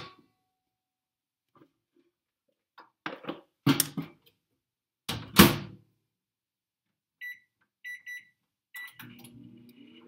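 Over-the-range microwave oven: a few loud thuds as the bowl goes in and the door is shut, then three short keypad beeps, and near the end the oven starts up with a low hum and a rising whine.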